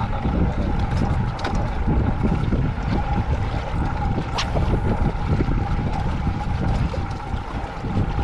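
Wind rumbling and buffeting on the microphone aboard a small inflatable boat, over a faint steady hum. A few short, sharp ticks come through, the clearest about halfway.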